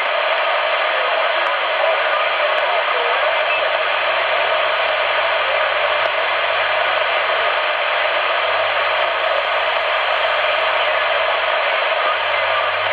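Steady hiss of band noise from a CRT SS 9900 CB transceiver tuned to 27.555 MHz upper sideband, with no station readable through it.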